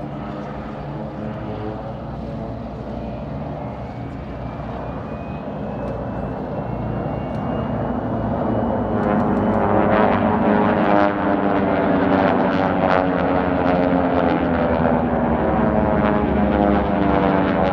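Several racing planes' Pratt & Whitney R-1340 radial engines running at full power, growing louder through the middle as the pack closes in and passes.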